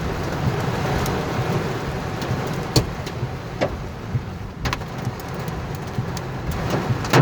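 Heavy rain and hail hitting a car's roof and windshield, heard from inside the cabin: a dense steady patter with scattered sharp knocks from large hailstones, quarter-sized.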